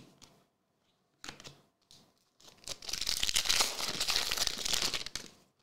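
A foil trading-card pack wrapper being torn open: a few soft rustles of cards being handled, then about three seconds of loud, dense crinkling and tearing of the foil.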